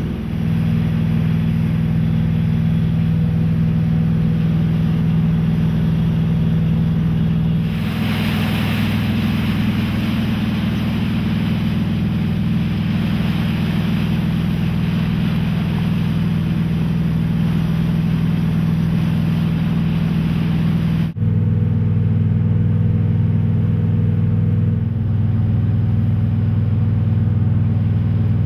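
A tugboat's engine running at a steady pitch, with a hiss over it in the middle stretch; the sound shifts abruptly twice, about a third of the way in and again near three-quarters.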